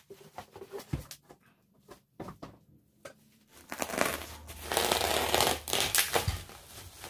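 Plastic bubble wrap being crinkled and torn off a packaged metal anchor. First come a few scattered knocks and rustles, with one low thump about a second in. From about halfway there is loud, continuous crinkling and tearing as the wrap is pulled away.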